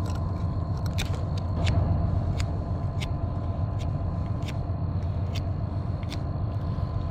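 Folding pocket knife whittling a willow stick: a string of short, sharp scrapes, roughly two a second, over a steady low drone.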